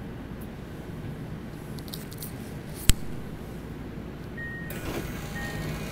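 Subway train interior: a steady low rumble and hum, with one sharp click about three seconds in and two short high beeps near the end.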